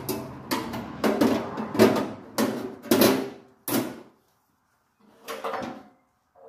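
Metal clanking and scraping from hand work on the side of an Allis-Chalmers B tractor: a run of sharp strokes with short ringing tones, roughly two a second for nearly four seconds, then a pause and one more short burst.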